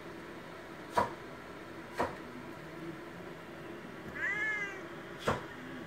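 A Siamese cat gives one short meow, rising then falling in pitch, about four seconds in. Sharp clicks, louder than the meow, sound twice in the first two seconds and once more near the end, over a steady low hum.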